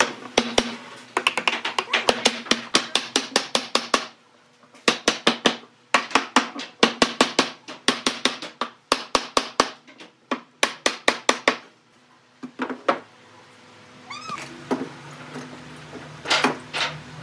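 Rapid runs of sharp knocks, about six a second, with brief pauses, stopping about two-thirds of the way through; a short squeaking glide follows near the end.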